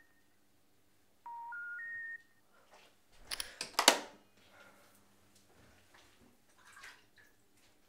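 Three rising beeps of a telephone special information tone: the signal that the call cannot be connected. About three seconds in come several sharp knocks and a clatter, the loudest just before four seconds in, with a few fainter knocks near the end.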